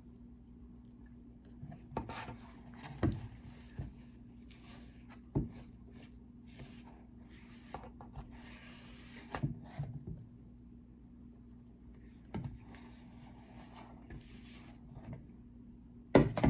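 A utensil scraping thick banana-bread batter out of a mixing bowl into a loaf pan, in repeated scraping strokes broken by several sharp knocks against the bowl or pan.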